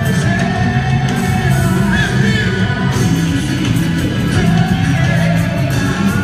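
Loud, steady festa junina music with a singing voice, played for a quadrilha junina group's show.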